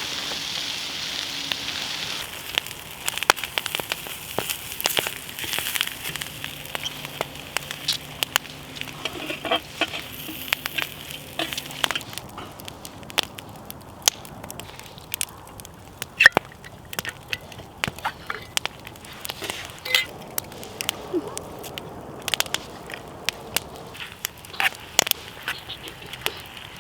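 Wood campfire crackling, with many sharp pops scattered throughout. A steady sizzle runs underneath for about the first twelve seconds, then stops, leaving only the crackle.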